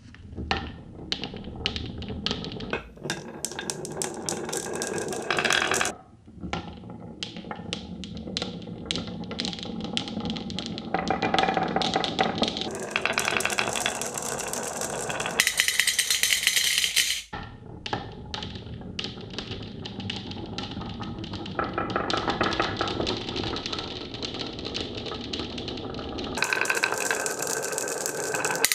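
Marbles rolling and clattering down a marble run of plastic rain-gutter channels and wooden rails. Rapid runs of clicks and clacks as they knock against each other and the track joints alternate with stretches of steady rolling rumble that start and stop abruptly.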